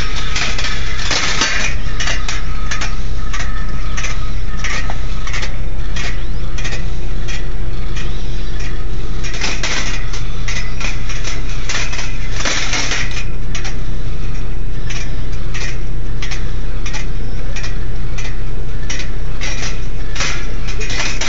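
Steel balls rolling through a stainless steel wire rolling ball sculpture, with frequent irregular metallic clicks and clinks as they run along the rails and strike the wire and cups, over a steady low hum.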